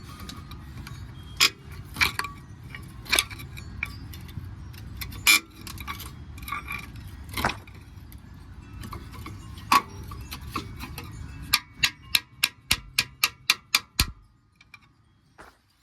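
Metal hand tools and brake parts clinking and clanking during brake work, irregular sharp knocks, then a quick run of about a dozen evenly spaced clicks near the end before it goes quiet.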